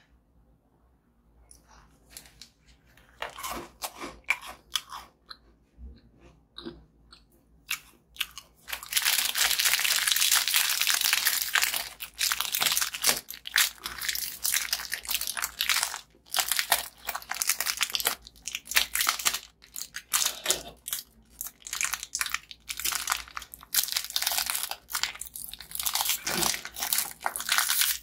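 Crisp crunching and crackling of packaged biscuits and their wrappers being handled. Scattered crackles at first, dense and continuous from about nine seconds in, with short breaks.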